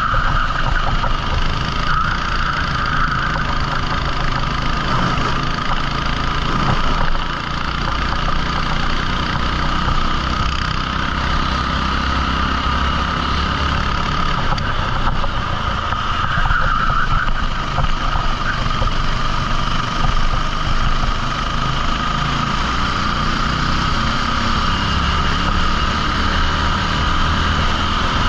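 A 14 hp rental kart's engine running, its note rising and falling with speed.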